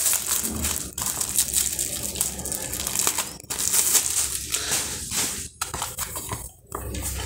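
Plastic shrink wrap crinkling and crackling as it is stripped off a book and crumpled in the hands. Near the end, the book's pages are fanned through.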